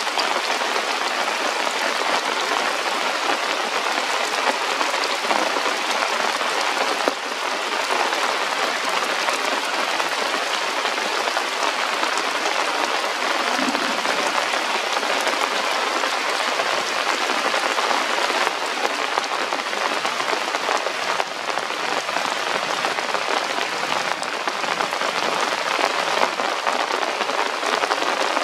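Steady rain falling on forest leaves: an even, unbroken hiss.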